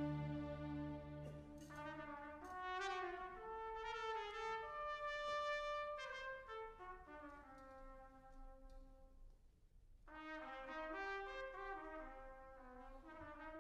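Solo trumpet playing a tango melody over a soft orchestral accompaniment, with low sustained notes under it for the first couple of seconds. The line drops away briefly around ten seconds in, then picks up again.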